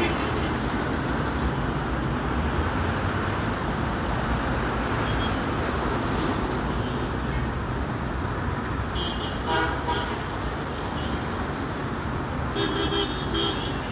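Steady road traffic noise from a seafront road, with car horns tooting briefly about nine seconds in and again near the end.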